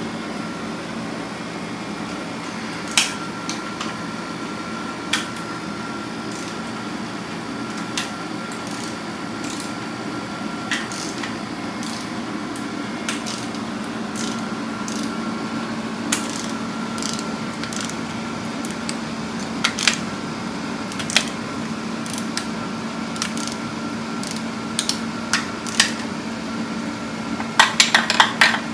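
Scattered sharp metal clicks from a wrench working the nuts on a Volkswagen Type 1 engine case, with a quick flurry of clicks near the end, over a steady mechanical hum.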